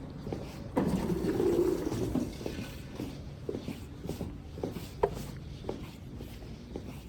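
Footsteps, a step roughly every half second, after a louder noisy sound lasting about a second and a half near the start.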